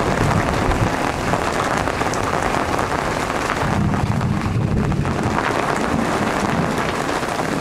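Heavy rain falling on the sea surface, a steady hiss, with a low rumble of thunder about halfway through.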